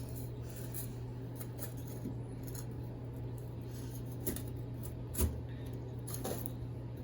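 Soft scrapes and light taps of soil being pushed and patted over planted beans, with one dull thump about five seconds in.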